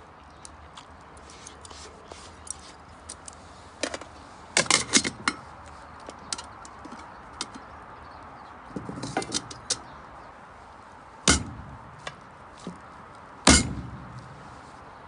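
Irregular sharp knocks and clinks of hard objects striking, with a quick cluster about five seconds in, another burst past the middle, and two louder single strikes near the end.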